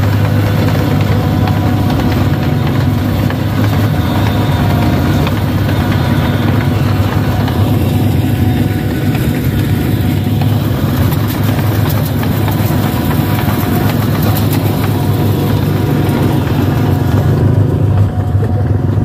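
Rice combine harvester's engine running steadily with a low, even hum as the machine drives slowly along a dirt track.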